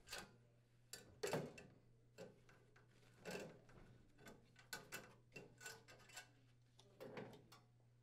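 Faint, irregular clicks and light clatter as the radiant surface elements of an electric cooktop are unclipped from their metal support rail and shifted aside, with the loudest knock about a second in.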